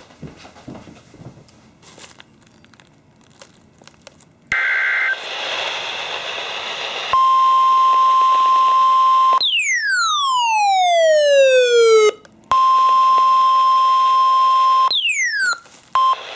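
NOAA Weather Radio alert sequence. Faint receiver hiss, then a brief burst of SAME data tones. Then the steady warning alarm tone near 1 kHz starts, broken twice by a steeply falling sweep.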